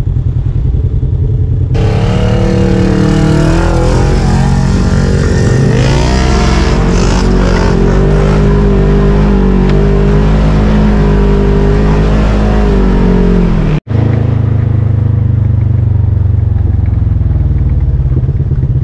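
Polaris RZR 1000 UTV's parallel-twin engine heard from inside the cab: a low rumble, then about two seconds in the engine revs up and pulls with a rushing hiss, its pitch rising and then holding steady. The sound cuts off abruptly about fourteen seconds in, and a low engine rumble follows.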